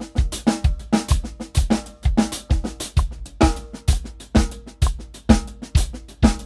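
Drum kit played in steady time at 128 BPM: kick and snare strokes with hi-hat and cymbals, in a groove-and-paradiddle exercise with single paradiddles played as eighth-note triplets.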